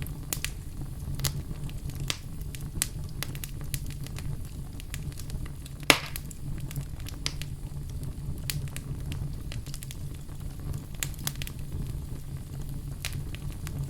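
Wood fire burning in a fireplace: irregular crackles and small snaps over a steady low rumble of flame, with one loud pop about six seconds in.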